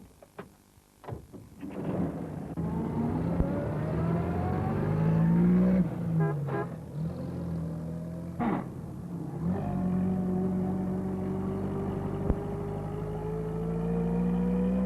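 Motor vehicle engine pulling away and accelerating, its pitch rising through the gears, dropping back at gear changes about six and nine and a half seconds in, then climbing again. A few sharp clicks come just before the engine starts.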